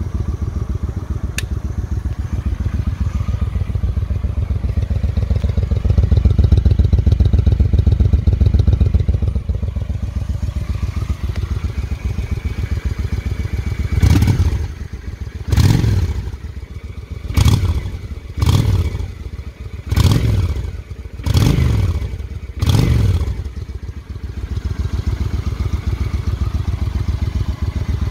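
Honda Shadow VT750C's V-twin engine idling steadily, then blipped seven times in quick succession with the throttle, each rev rising and falling back to idle, before it settles into idle again.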